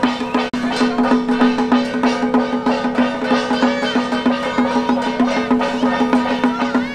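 Traditional Taiwanese temple-procession percussion: drums and gongs playing a fast, even beat over a steady ringing tone.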